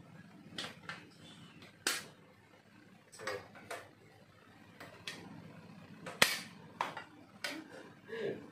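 Portable folding laptop table being handled: a series of sharp clicks and knocks as its hinged legs are swung and locked into place, the loudest about six seconds in.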